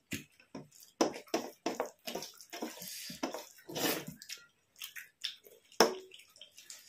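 Close-miked wet eating sounds: chewing, lip smacks and squelches of rice and curry, a string of short irregular clicks with a sharper click a little before the end.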